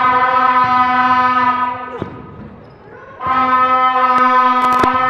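A horn holding one steady, unwavering note in two long blasts. The first fades out just under two seconds in, and the second starts again after about a second's gap. A few sharp knocks of a basketball on the court fall near the end.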